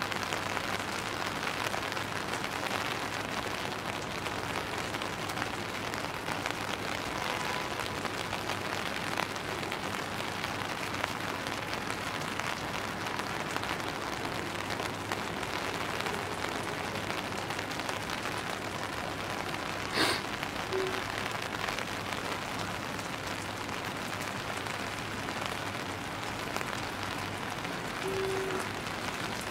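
Steady rain falling and pattering on surfaces, an even hiss throughout, with one sharp knock about twenty seconds in.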